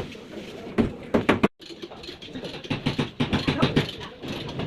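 Rapid, irregular mechanical clicking and rattling of metal tools. The sound cuts out abruptly about one and a half seconds in, then resumes.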